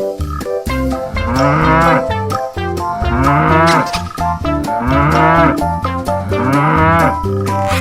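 A cow mooing four times, each call rising and then falling in pitch, over background music.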